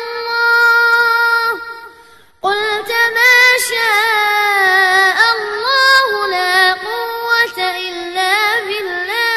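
A boy's high voice chanting Quran recitation in long, melodically ornamented held notes. The first phrase fades out about a second and a half in, there is a short pause for breath, and the chanting resumes about two and a half seconds in.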